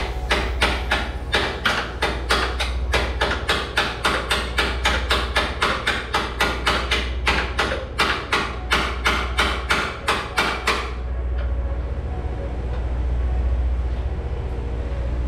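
Hand hammer striking steel at a semi truck's rear shock absorber mount: a steady run of blows, about three or four a second, that stops about eleven seconds in. A steady low hum runs underneath.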